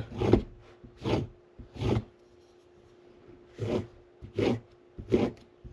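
A Scandinavian-grind carving knife being honed on a strop block: six short scraping strokes of the blade drawn across the strop, in two runs of three with a pause between them, as the knife is stroked equally on each side of the edge.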